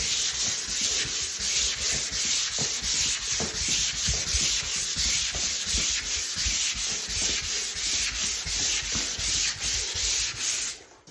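Sandpaper rubbing back and forth over dried drywall joint compound on a taped seam, a steady rasping hiss in quick, even strokes. It stops shortly before the end.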